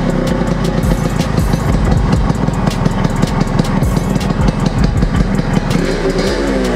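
Yamaha RX100's 98 cc two-stroke single-cylinder engine idling, running on a newly fitted Allied CDI ignition.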